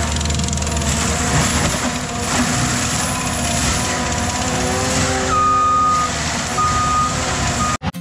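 ASV RT-135 compact track loader running under load with its forestry mulcher head spinning: a loud, steady diesel-and-mulcher din. About five seconds in, its reversing alarm starts beeping, one steady tone switching on and off, as the machine backs up. The sound cuts off abruptly just before the end.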